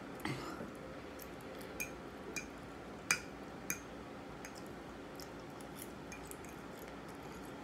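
Quiet eating sounds: a fork clicking now and then against a plate, with soft chewing and mouth clicks. There are a dozen or so small scattered clicks over a faint room hiss, the sharpest about three seconds in.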